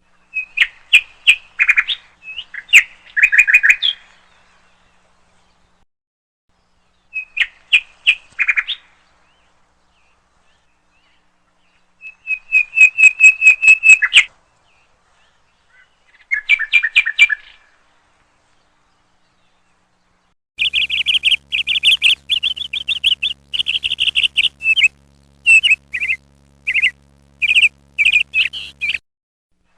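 Bird chirping in quick series of high-pitched chirps, coming in short bursts with silent gaps between them, then a longer, denser run of chirps over a faint low hum about two-thirds of the way in.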